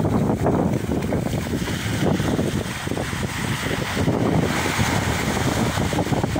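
Wind buffeting the microphone over small waves breaking on a sandy shore.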